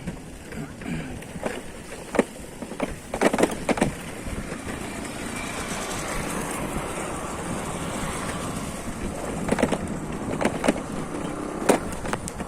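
A vehicle on the move: steady road and travel noise, with several sharp knocks and rattles, a cluster about three seconds in and more near the end.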